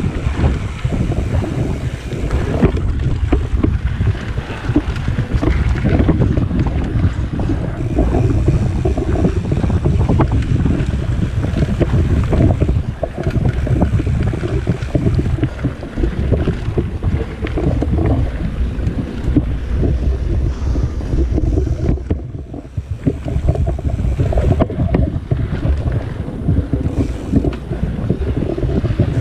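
Mountain bike ridden fast on a dirt singletrack: wind rumbling on the camera's microphone over the tyres rolling on dirt, with small rattles and clicks from the bike over bumps. The rumble eases briefly about two-thirds of the way through.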